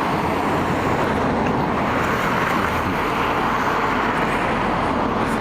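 Steady motor-vehicle traffic noise with no distinct events.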